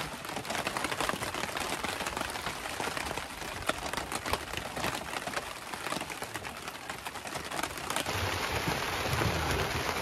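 Heavy rain pattering on a tarp overhead, a dense, steady patter of many drops. Some low rumbling joins near the end.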